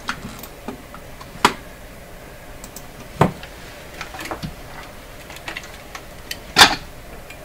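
Scattered clicks and knocks of tools and small parts being handled on a workbench, and of the camera being picked up and moved. There is a sharp knock about a second and a half in, a duller one a little past three seconds, and the loudest near the end.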